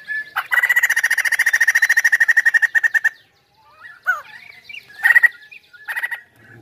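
White-crested laughingthrush singing vigorously: a loud, rapid chattering run of about a dozen notes a second for roughly two and a half seconds. It stops abruptly and is followed by scattered short whistles, a falling note and brief harsh calls.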